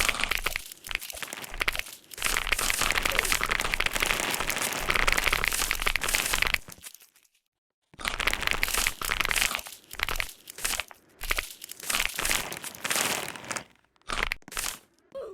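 Computer keyboard being typed on rapidly: a dense clatter of keystrokes, stopping for about a second midway, then resuming in shorter runs.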